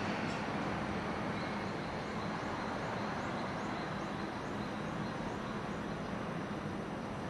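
Steady distant city rumble, an even wash of noise with no single source standing out, with faint high chirps repeating about twice a second through the middle.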